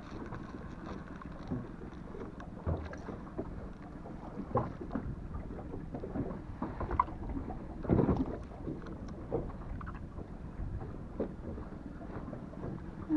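Low wind rumble on the microphone and water around a small boat at sea, with scattered small knocks and clicks from handling a spinning rod and reel, and one louder thump about eight seconds in.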